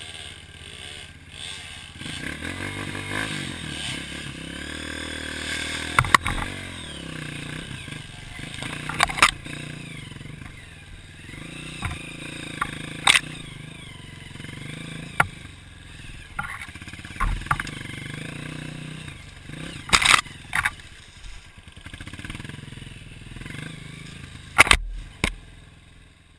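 Off-road trail motorcycle engine running and revving up and down, with sharp knocks and clatter a handful of times, the loudest about twenty seconds in.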